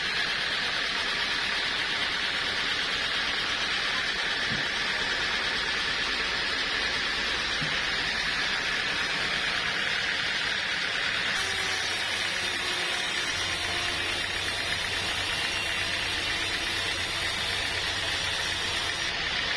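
Sawmill machinery running steadily. About eleven seconds in, a low hum and a high hiss join the noise, as if another machine has started.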